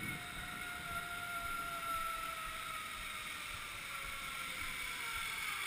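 Zip line trolley pulleys running along the steel cable, a steady whir whose pitch slowly falls as the rider moves away and slows.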